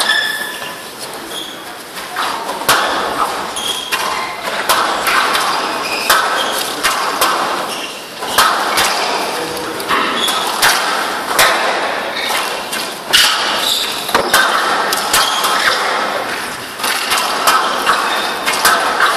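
Squash rally on a glass court: the ball smacking off rackets and walls one to two times a second, over the murmur of the crowd in a large hall.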